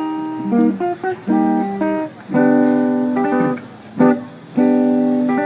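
Guitar music: chords strummed and let ring, a new chord roughly every second.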